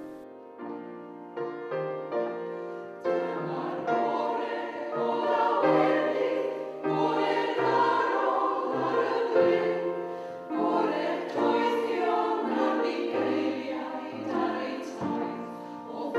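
A choir singing slow, held chords. It starts thinly and grows fuller and louder about three seconds in.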